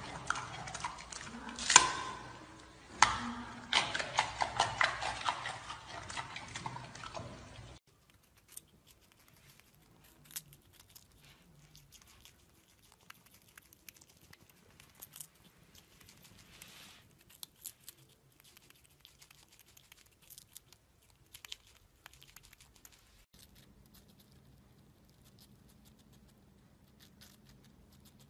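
Animals chewing food close to the microphone. For about the first eight seconds a giant panda makes loud, crisp crunching and smacking. After that there is only faint, scattered nibbling clicks from a gray squirrel and then a hamster eating.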